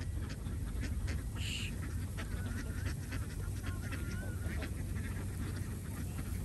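A large flock of domestic ducks quacking and chattering, many short calls overlapping, over a steady low rumble.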